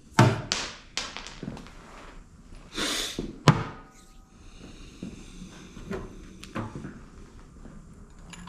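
Hand tools clicking and knocking against metal during work on a motorcycle stud held fast with threadlocker: a sharp knock just after the start, a run of smaller clicks, a short hiss around three seconds in, another sharp knock just after it, and two lighter knocks near the end.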